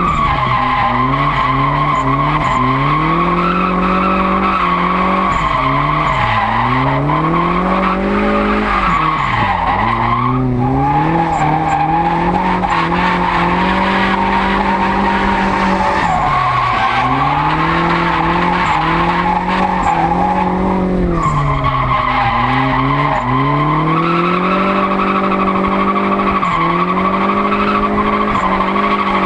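Turbocharged KA24DET four-cylinder engine of a Nissan drift car revving hard and dipping again and again while the rear tyres squeal continuously through the slides. The revs drop sharply about three times, with the squeal breaking off each time.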